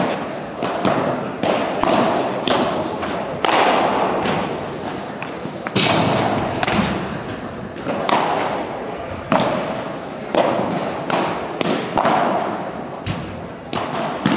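Padel rally: a string of sharp knocks from the ball striking the solid padel rackets and bouncing on the court, about one or two a second at an uneven pace, each with a short echo in the hall.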